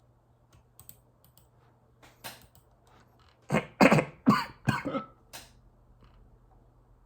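A quick run of five or six sharp, loud throat sounds from a person, lasting about two seconds, starting a little past the middle.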